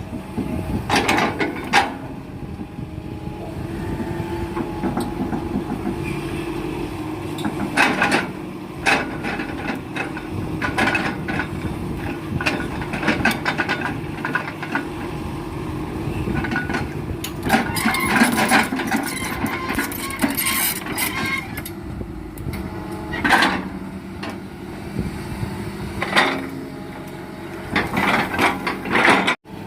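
Excavator's diesel engine running steadily under work, with repeated knocks and clatters of rubberwood logs being grabbed and dropped.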